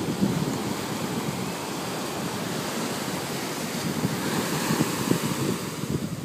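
Ocean surf breaking and washing on a beach, with wind buffeting the microphone, and a wave swelling louder about two-thirds of the way in.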